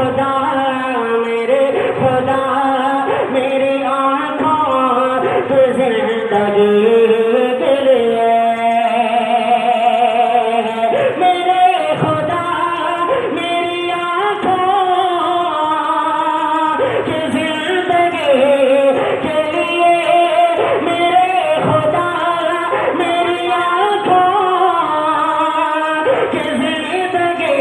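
A man singing a naat, an Urdu devotional poem, in long drawn-out melodic phrases into a microphone through a public-address system with echo added.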